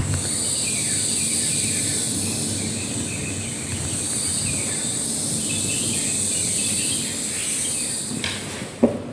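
Steady high insect-like drone with repeated short, falling bird-like chirps over it, starting and stopping abruptly. It is heard as a sound-effect piece in an artwork installation. A sharp click comes near the end.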